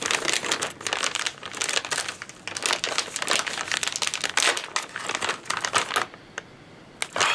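Bacon jerky bag crinkling as it is opened and handled, in quick irregular rustles. It goes quiet for about a second near the end, then crinkles once more.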